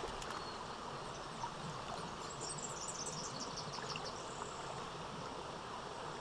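Steady rush of a running stream, with a short run of high chirping about two to three seconds in.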